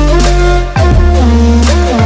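Electronic background music with a deep, sustained bass and synth notes that glide from pitch to pitch. A sharp drum hit lands just under a second in, after a brief dip.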